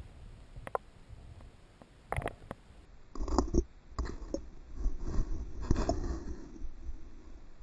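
Muffled water movement heard through a submerged action-camera housing: scattered knocks and clicks over a low rumble, louder and more frequent from about three seconds in, as a hand moves a bass in the water.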